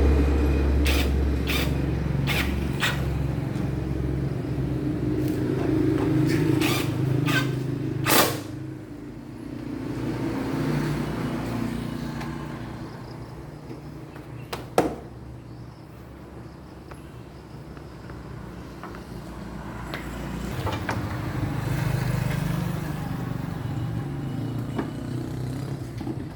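Car engine running, rising and falling slowly. Several sharp clicks sound over the first eight seconds, and a single loud knock comes about fifteen seconds in.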